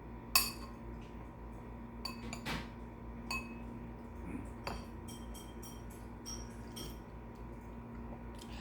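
Spoon clinking against a dish while eating broth: a sharp ringing clink about half a second in, followed by several lighter clinks and taps spread irregularly over the next few seconds.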